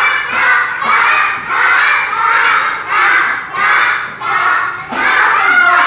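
A group of young children chanting together in unison, loud and in a steady rhythm of about two shouted syllables a second.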